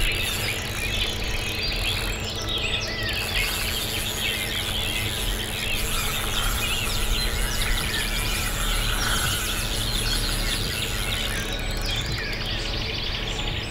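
A dense chorus of many songbirds singing at once, overlapping chirps and trills, over a steady low rumble.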